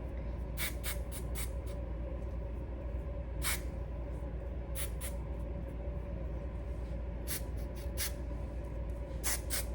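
Short hissing puffs of Got2b Glue aerosol spray, about a dozen scattered through, over a steady low hum.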